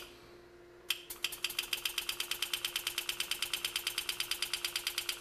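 Pneumatic power-assist engraving handpiece hammering a graver through metal: a fast, even ticking of over a dozen strokes a second, which stops briefly at the start and picks up again a little under a second in as the cut goes on. A steady low hum runs underneath.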